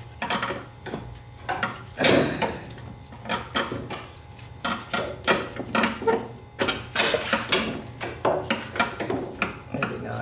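Starter motor knocking and scraping against metal in the engine bay as it is worked into its mounting by hand: a series of irregular clunks and rubs, the loudest about two seconds in.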